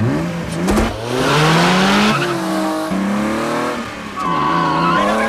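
Car engine accelerating hard through the gears, its pitch climbing and dropping back at each shift about two and three seconds in, then climbing again near the end. Tyres squeal briefly about a second in.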